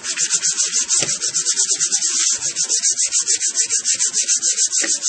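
A BlackBerry phone is rubbed face-down on a sheet of paper in rapid, evenly paced back-and-forth scrubbing strokes. Its stuck trackball is being rolled over the paper to wipe residue off it so it will scroll again.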